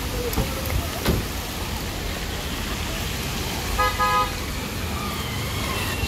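Cars driving slowly on a wet road, with a car horn giving two short toots about four seconds in.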